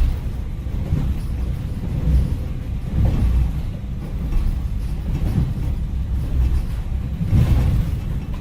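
Added sound-effect track: a steady deep rumble with irregular louder swells.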